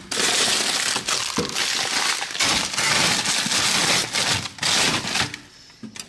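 Crunching and crackling of frozen food packages and frost being shifted and pulled out of a freezer, dense and loud, dying away about five seconds in.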